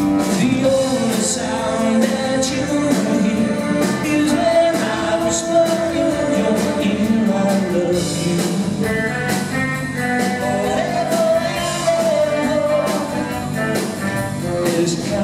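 Live pop-rock band playing: a male lead vocal over electric guitars and drums, sung notes held long between regular drum hits.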